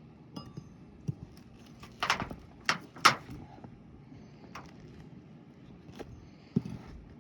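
A run of sharp knocks, clicks and rustles as a new roof shingle is slid and worked into place. The three loudest come close together about two to three seconds in, with lighter clicks near the start and near the end.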